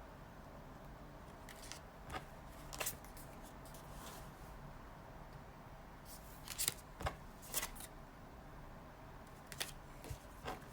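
A few short, sharp clicks and taps, scattered irregularly, over a steady low background hum.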